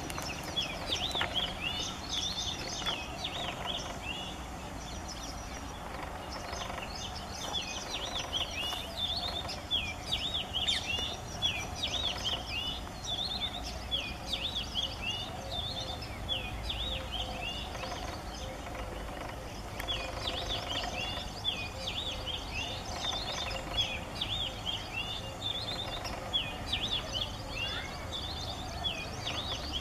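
Male Oriental magpie-robin singing: bouts of quick, varied whistled notes with short pauses between bouts, over a steady low background rumble.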